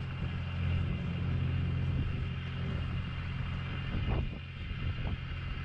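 Fishing boat's engine running with a steady low drone and a faint whine above it. A couple of light knocks come near the end.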